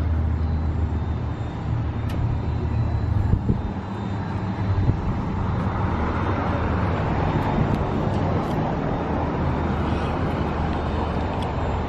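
Steady low engine rumble of road traffic, with a broader hiss building from about six seconds in.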